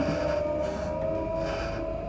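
Electric passenger train running at speed, heard from inside the carriage: a steady whine over the low rumble of the wheels on the track.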